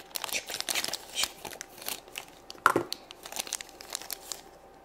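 A small clear plastic bag crinkling and crackling irregularly as it is cut with scissors and pulled open by hand, with one louder crackle a little past the middle. It goes quiet just before the end.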